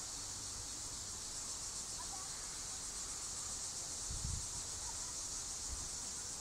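Steady, high-pitched chorus of insects chirring without a break.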